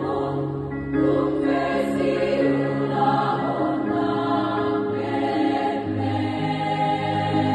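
Women's choir singing a hymn in parts, holding sustained notes over a low accompaniment.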